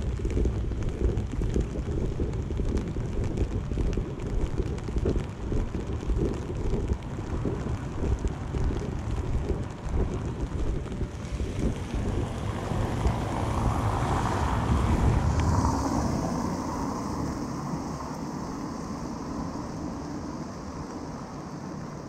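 Wind buffeting the microphone of a moving camera, a gusty low rumble. About twelve seconds in, a car on the wet road swells past with a hiss of tyres on water, then the sound settles to a quieter, steady hiss.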